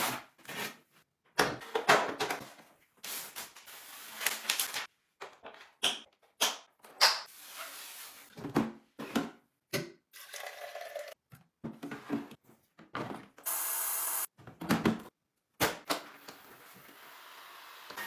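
Handling sounds from unboxing a robot vacuum in short edited snippets with abrupt cuts: cardboard box flaps rustling and scraping, and plastic parts being clicked, tapped and set down. A brief steady hiss comes about three-quarters of the way through, and a faint steady noise rises near the end.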